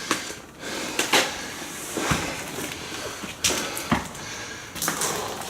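Footsteps: a handful of irregular thuds and scuffs, about one a second, on an old building's floor.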